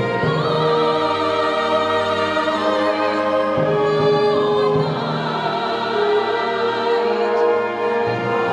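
Choir singing sacred music with instrumental accompaniment: slow, long held chords with vibrato, changing every second or two.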